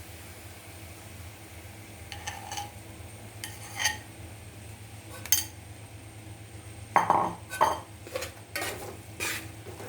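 A metal spoon or ladle clinking and scraping against a cooking pan as melted jaggery is added little by little to the cooked jackfruit. A few separate clinks come first, then a busier run of knocks and scrapes in the second half.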